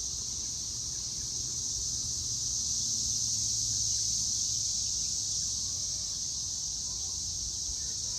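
Chorus of cicadas, a loud, steady, high-pitched drone that holds without a break.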